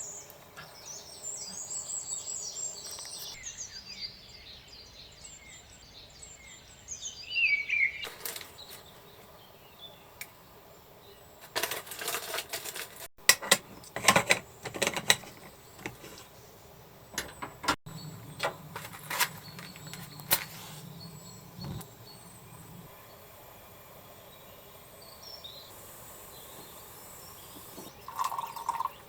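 Outdoor ambience with birds chirping in the first few seconds, then a run of scattered sharp knocks and clatters.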